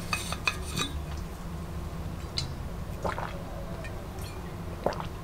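Drinking from a bottle: a few small handling clicks and soft sips of liquid over a low steady hum.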